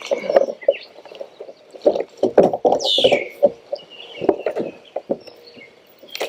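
Irregular knocks and thumps of handling on a kayak, as a freshly caught largemouth bass and gear are moved about on board. About three seconds in there is a single short falling chirp.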